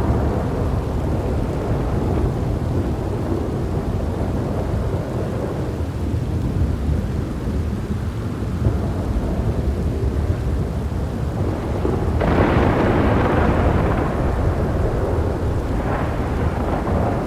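Thunderstorm: steady rain with low, rolling thunder throughout, and a sharper, louder thunderclap about twelve seconds in that rumbles on for a few seconds, followed by a smaller one near the end.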